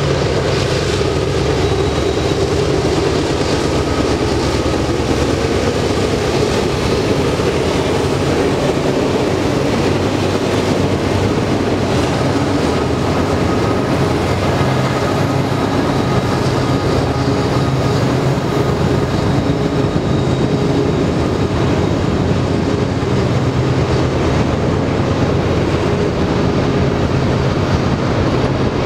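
Canadian Pacific freight train: its three diesel locomotives working hard as they pass at first, then a long string of boxcars rolling by with steady wheel and rail noise.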